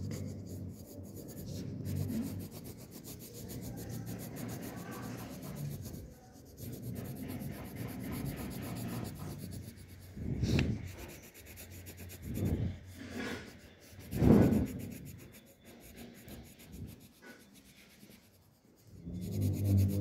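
Pencil shading on paper: a quick, continuous scratching of back-and-forth strokes as a shape is filled in solid, with a few louder scrubbing strokes around the middle.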